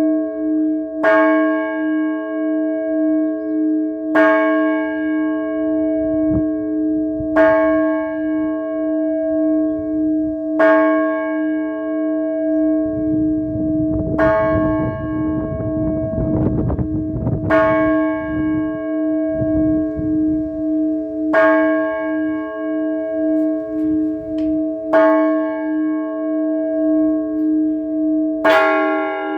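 One Orthodox church bell struck slowly about every three and a half seconds, its deep hum ringing on between strokes. Near the end, quicker strikes on more bells join in as the chiming begins, and midway a low rumbling noise rises under the bell for several seconds.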